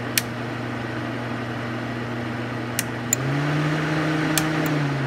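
Suzuki SX4 radiator cooling fan humming steadily at low speed, with several sharp relay clicks. About three seconds in, the fan steps up to high speed and its hum rises in pitch, then falls back right at the end. The ECM's fan relays are switching the fan between its two speeds as the simulated coolant temperature is toggled.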